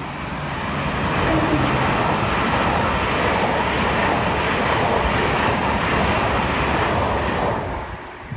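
A Great Western Railway Hitachi Intercity Express Train passing at speed: a steady rush of wheels on rail and air that swells over the first second, holds, and drops away sharply near the end as the last coach clears.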